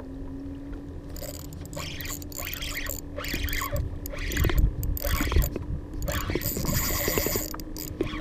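Spinning reel being cranked in bursts while a hooked fish is reeled in, with scraping and rustling of hands and gear close to the microphone and quick clicks in the second half. A steady low hum runs underneath.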